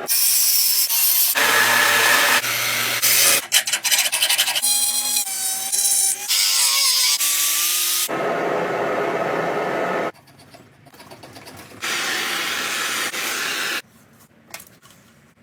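A series of abrasive workshop sounds, likely grinding, sanding and filing while the axe is finished. Each loud burst starts and stops abruptly as the clips cut, with quieter gaps about two-thirds of the way through and near the end.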